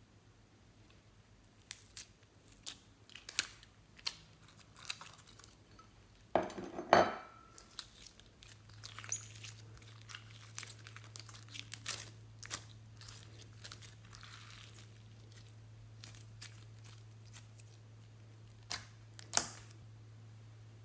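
Slime tipped out of its tray and squeezed by hand in a glass dish: sticky crackles and small pops, with a louder, longer rush of crackling about six seconds in.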